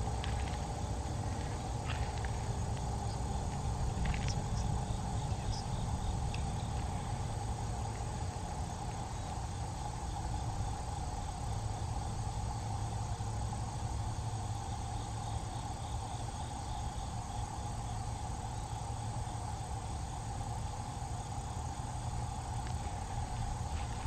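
Fedelcode Type Mach 7 twelve-port electromechanical siren sounding a steady alert tone during a full-alert test.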